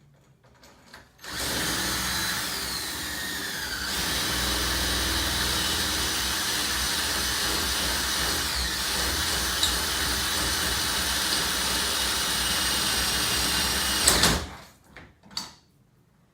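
Electric drill boring into a metal lock cylinder. It starts about a second in and runs steadily for about thirteen seconds, its whine dropping in pitch two to four seconds in as the bit bites, then stops. A couple of light knocks follow.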